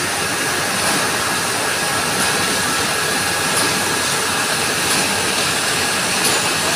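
Steady factory machinery din, an even mechanical noise with a faint high whine held within it.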